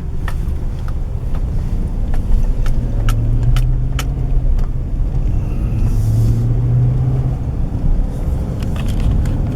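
Steady low rumble inside a car's cabin, with a few sharp clicks or ticks scattered through the first half.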